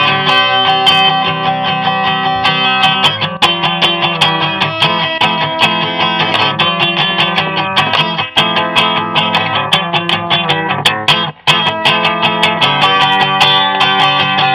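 Guitar music, strummed, in an instrumental passage of a home-recorded song with a steady beat. It drops out for a moment about eleven seconds in.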